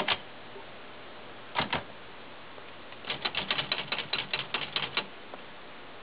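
1970 Olympia SM9 portable manual typewriter being typed on, with its carriage and keyboard lock disengaged. A single click and a double click come first, then a quick run of sharp typebar strikes, several a second, for about two seconds near the end.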